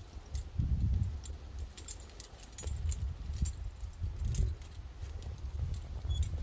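Metal climbing gear (cams and nuts racked on carabiners) clinking and jangling in short, irregular jingles, over uneven low rumbling.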